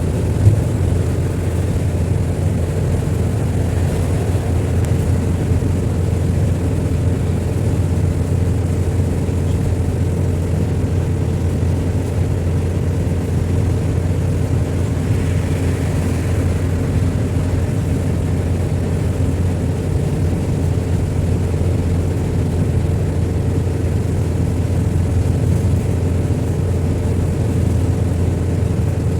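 Steady drone of a vehicle on the move, engine and road noise, with a single knock about half a second in.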